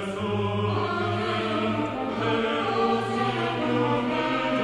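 A mixed choir singing sacred music in held chords, accompanied by an orchestra.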